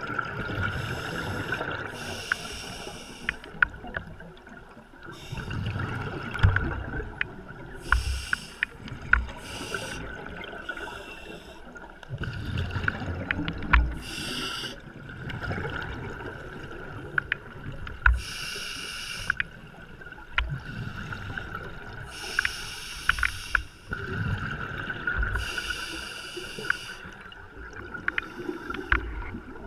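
Scuba regulator breathing underwater: hissing inhalations through the demand valve every few seconds, with bursts of rumbling, bubbling exhalation in between. A steady whine and scattered sharp clicks run under it.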